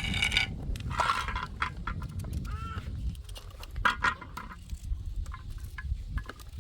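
Goats bleating several times in short wavering calls, the loudest at the start and about a second in, with scattered clicks and knocks over a low rumble.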